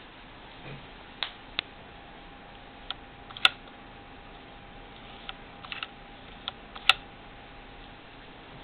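Scattered sharp metallic clicks from a Morse 4000 sewing machine's zig zag dial and the stitch-width linkage under its top cover being worked by hand, with two louder snaps about three and a half and seven seconds in.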